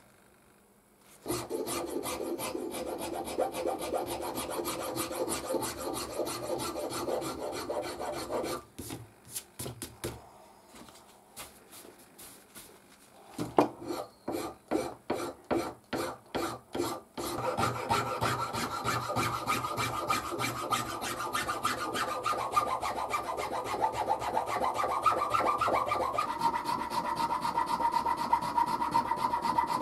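Hand file scraping across a red micarta knife handle and its steel tang, clamped in a vise. Rapid continuous strokes start about a second in, slow to separate single strokes for several seconds in the middle, then pick up to steady rapid filing again.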